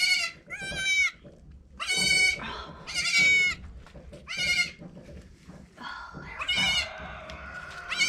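Newborn goat kids bleating: a run of about six short, high-pitched calls, a second or so apart.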